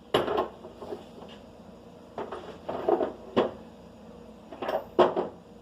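Parts and tools being handled and set down: a few sharp knocks with short bursts of rattling and rustling between them.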